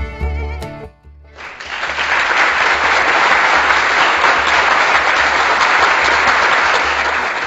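Applause that starts suddenly about a second and a half in and keeps going steadily, laid over background music with a low, even beat.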